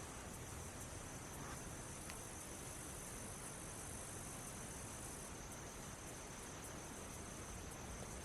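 Steady high-pitched singing of insects, such as crickets, over a faint even hiss.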